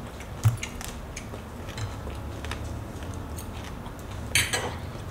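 A person eating roasted broccoli: chewing, with small clicks of a metal fork against a plate. A louder clatter of the fork comes about four seconds in.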